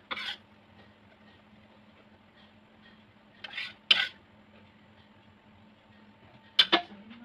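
Metal wok spatula scraping and clinking against the wok as sauce is scooped from it: a short scrape near the start, two more a little past the middle, and two sharp clinks near the end.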